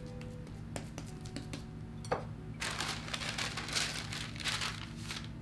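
Parchment paper rustling and crinkling as a sheet is handled and laid flat over dough, starting about halfway in, with a single soft knock just before. A low steady hum runs underneath.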